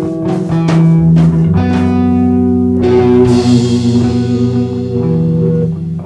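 Improvised rock from a band: electric guitar and bass over drum hits for the first three seconds. A crash about three seconds in then rings out while the guitar and bass hold long notes.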